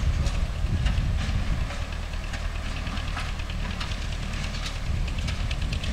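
MTZ-5 tractor's diesel engine running steadily while driving a hay baler, with a quick, irregular clatter of light knocks from the working baler over the engine.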